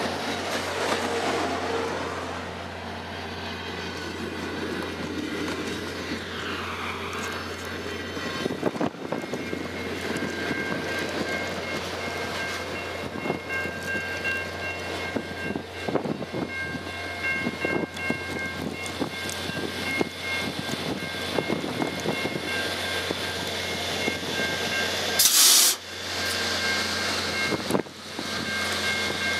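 Via Rail passenger cars rolling past close by: a steady rumble with the clickety-clack of wheels over rail joints. From about halfway, high ringing tones come and go, and a brief loud rush of noise comes near the end.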